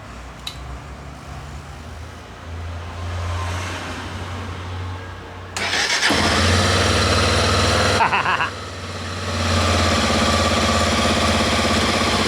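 Honda XRE 300 single-cylinder engine started on the electric starter about five and a half seconds in and running. It breaks off briefly around the eighth second, with a short higher starter-like sound, then runs again. This is a test start after the starter clutch plate was replaced, to check whether the loud noise on electric start is cured.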